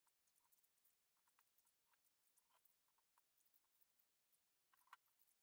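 Near silence, with faint, irregular short clicks and crackles.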